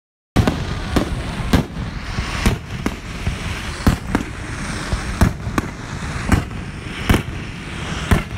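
Aerial fireworks shells bursting overhead: about a dozen sharp bangs at irregular intervals over a steady rushing, crackling background.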